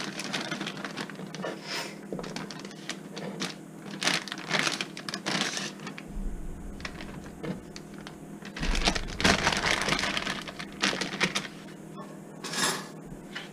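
Plastic food bag rustling and crinkling in irregular bursts while chopped potato pieces are handled into it.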